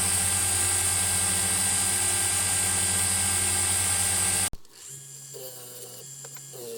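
Grinder motor running steadily with a hiss as the steel wrench is fine-sanded on it. It cuts off abruptly about four and a half seconds in, leaving soft background music.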